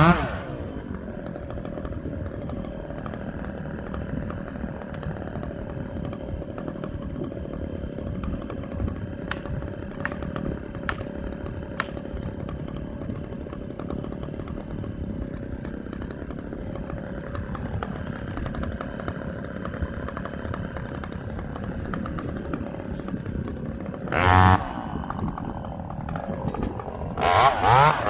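Two-stroke chainsaw dropping from full throttle to idle and idling steadily, with a short burst of throttle about 24 seconds in and two more blips near the end as it revs back up. A few faint ticks come partway through.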